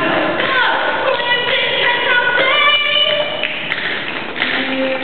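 A girl singing a solo into a microphone, holding long notes, while tap dancers' shoes tap on the stage. The singing dominates for the first three seconds or so, then the taps take over near the end.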